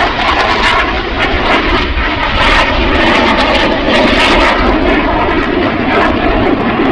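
Twin-engine MiG-35 fighter jet flying a display pass: a loud, steady rush of jet engine noise.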